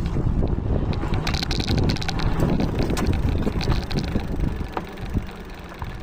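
A Duotts S26 fat-tyre electric bike being ridden, with wind rumbling on the microphone over tyre and road noise and scattered small clicks and rattles.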